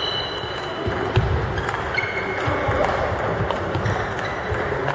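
Table tennis rally: the ball clicking off bats and the table at irregular intervals, echoing in a sports hall, over background hall chatter.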